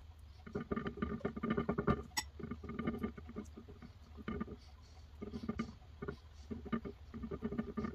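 Fingers crumpling and pressing thin slices of cooked ham around a cream-cheese filling, giving soft, sticky crinkling in several short bursts. A sharp click about two seconds in, over a steady low hum.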